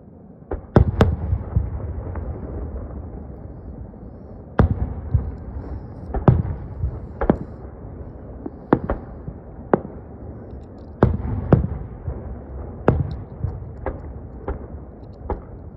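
Aerial firework shells bursting: a string of over a dozen sharp booms at uneven intervals, each trailed by a low rolling rumble, the loudest pair about a second in.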